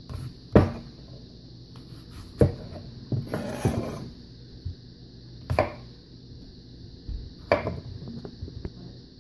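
A chef's knife cutting through an apple and knocking down onto a wooden cutting board: four sharp knocks about two seconds apart, with a short rubbing sound of the apple being shifted on the board between the second and third.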